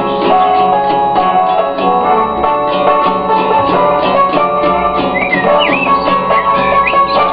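Instrumental music with a steady beat: several pitched instruments over drums, with a plucked guitar-like part.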